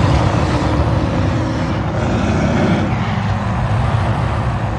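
Brown bear roaring: one long, low, rasping roar held without a break.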